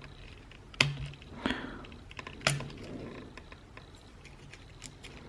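Sharp little clicks and taps of hands and a tool working at the speaker's circuit board and plastic housing while trying to free a ribbon-cable connector: three louder clicks in the first two and a half seconds, with fainter ticks and light scraping.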